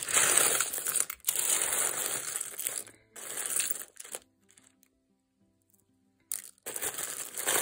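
Hands rummaging through a box of buttons: bursts of rustling and clattering as the buttons are stirred and sifted, with a pause of about two seconds past the middle.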